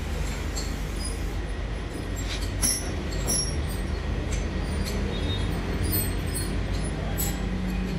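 A metal lathe running steadily with a low hum while its cutting tool turns an engine valve, with scattered brief high-pitched squeaks and several sharp clicks of tool on metal.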